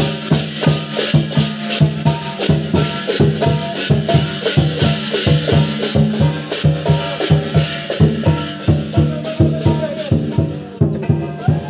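Chinese lion dance percussion: a large lion drum with crash cymbals and gong, playing a fast, even beat. The cymbal clashes thin out briefly near the end.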